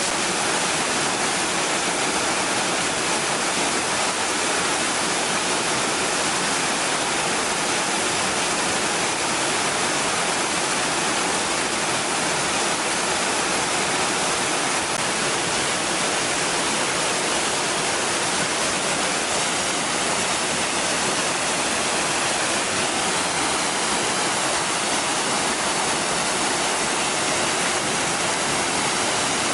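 Waterfall crashing steadily, an even, unbroken rush of falling water.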